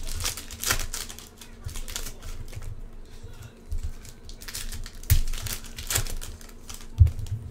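Foil wrappers of Contenders football card packs crinkling and tearing as they are ripped open by hand, a run of irregular sharp crackles, with a few dull knocks about five seconds in and near the end.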